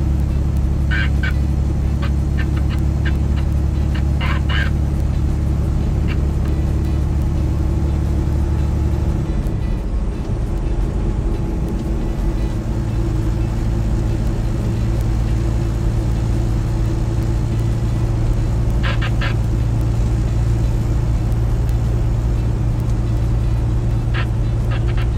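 A semi truck's diesel engine drones steadily, heard from inside the cab at highway speed. Its note changes about ten seconds in as the engine speed shifts. Short clusters of high clicks come a few times.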